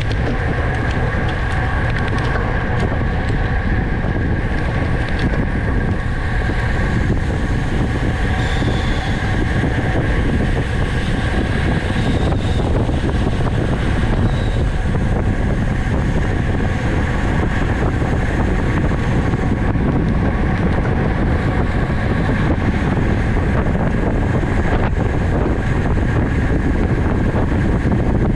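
Steady wind rushing over the microphone of a camera moving with a bicycle race, with a faint steady hum above it.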